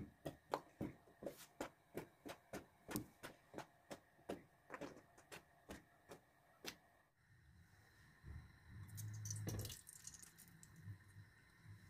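A kitchen utensil knocking sharply and regularly, about three strikes a second, stopping about seven seconds in. After that comes a low hum, with a short rustling noise about nine seconds in.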